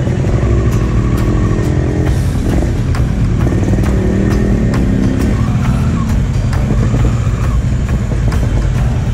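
Kawasaki Versys 650's parallel-twin engine running steadily at low revs as the motorcycle rolls slowly at walking pace, with background music over it.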